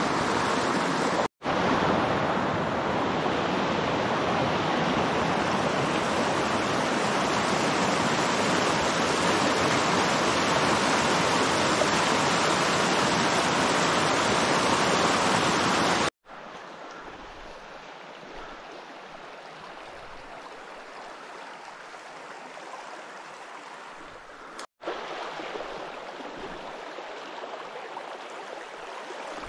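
Shallow, fast trout stream rushing over rocks and riffles, a steady water noise. It is loud at first, then a quieter flow from a little past halfway, with three momentary silent gaps.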